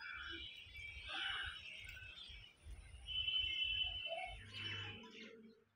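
Faint squelching of a lemon being squeezed by hand over a metal bowl, with low handling rumbles, and birds chirping faintly in the background.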